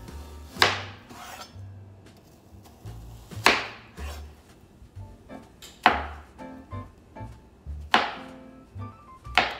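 Chef's knife cutting onion and mushrooms on a plastic cutting board: sharp knocks of the blade hitting the board every two seconds or so, with lighter taps between. Soft background music runs underneath.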